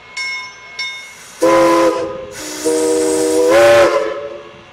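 Small steam locomotive's bell rings twice, then its steam whistle sounds a short blast and a longer one: a chord of several tones over a rush of steam hiss.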